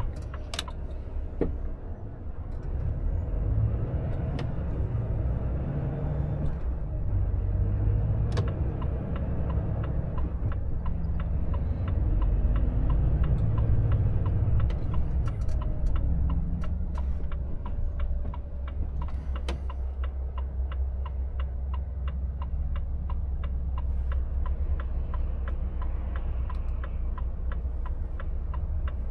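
Cab sound of a Volvo FH 460's 13-litre six-cylinder diesel running as the truck drives slowly and comes to a stop. A little past halfway a fast, even ticking of the indicator relay starts and keeps going.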